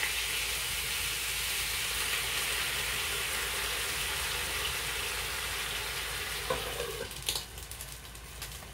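Pork-wrapped eggplant rolls frying in a pan, a steady sizzle of hot oil. Near the end there are a couple of sharp clicks and the sizzling drops away.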